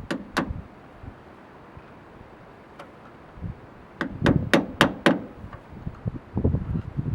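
Sharp metal clinks and knocks from hand work on a skid steer's valve lever linkage: two near the start, a quick run of about four halfway through, then a few duller knocks near the end.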